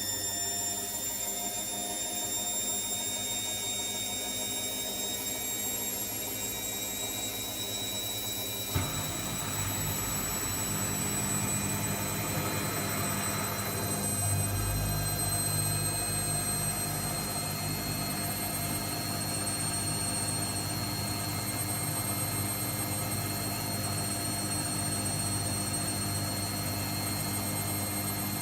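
Hotpoint WMBF742 washing machine in its spin, the motor whine slowly rising in pitch as the drum speeds up. A single click about nine seconds in, after which the running gets louder with a deeper hum.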